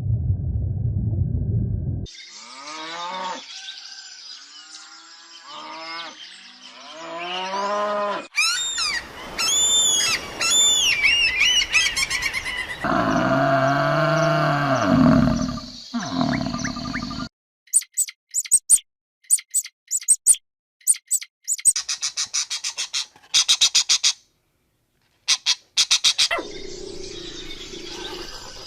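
A string of different animal calls, one clip after another with abrupt cuts: falling chirps and arched bird-like calls, then a lower pitched call, then runs of sharp rapid clicks.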